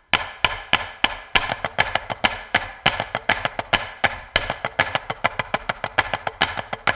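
Wooden drumsticks playing a fast, steady, accented pattern on practice pads: louder accent strokes with quieter taps between.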